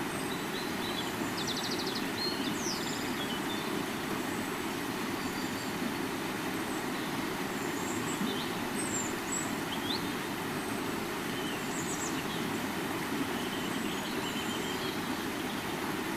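River water flowing steadily, with a few faint high chirps scattered through.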